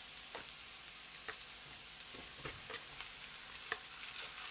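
Butter and minced garlic sizzling in a frying pan, with a few light spatula taps as cooked short-grain rice is tipped in from a pot.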